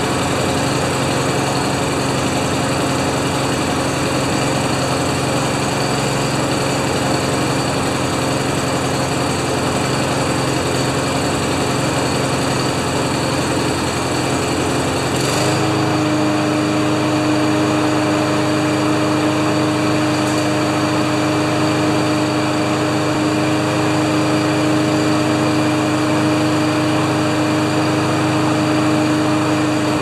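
Honda GCV190 single-cylinder engine on a Craftsman push mower running steadily; about halfway through its speed steps up with a click, and it runs on at the higher pitch. The engine, which would not start, now keeps running on its own.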